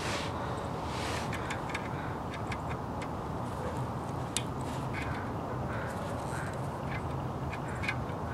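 Scattered small clicks and ticks of hand wire strippers working a thin bare copper ground wire, over a steady background hiss.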